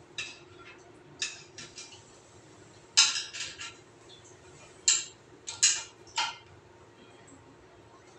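Sharp clinks and taps of metal fittings and tools against a ceramic toilet cistern, in irregular groups, the loudest about three seconds in, over a faint steady hum.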